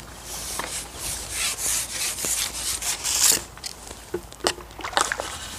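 Carbon fishing pole being shipped back hand over hand, its sections sliding and rasping over the pole rests in a run of scraping strokes. A few sharp knocks follow near the end.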